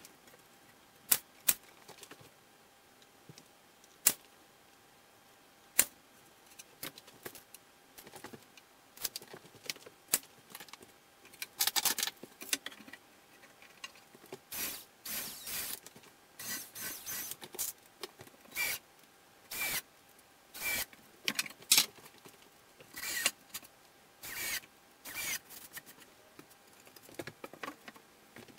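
Workshop handling noises: a few sharp knocks early on, then from about eleven seconds in a long run of short, irregular rattling and scraping bursts as tools and parts are handled at the bench.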